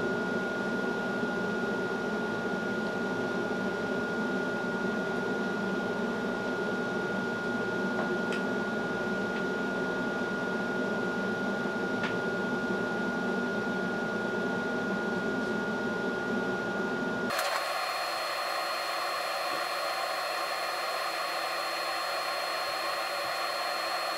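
Scanning club light running: a steady whirring hum with a faint high tone. About 17 seconds in, the sound changes abruptly: the low hum drops away and a thinner, higher whine takes over.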